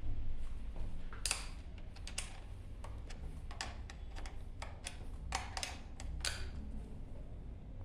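Irregular light clicks and knocks of metal parts and hand tools being handled while the wheel is fastened back onto an electric scooter's axle.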